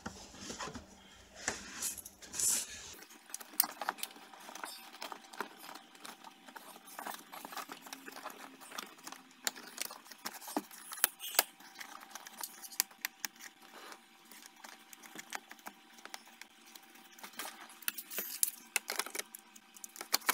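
Scattered light plastic clicks and rustling as car stereo wiring is handled and tied back with zip ties under the dash.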